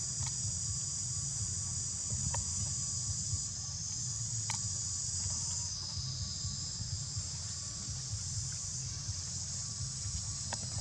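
Steady, high-pitched insect chorus with a low rumble underneath and a few sharp clicks.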